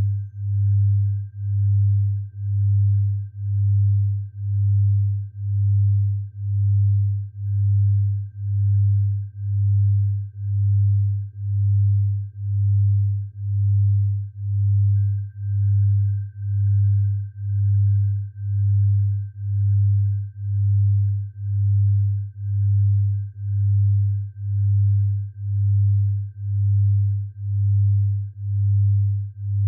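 Electronically generated low sine tone that swells and fades in steady pulses about once a second, with a faint steady high tone above it: a tinnitus sound-therapy tone.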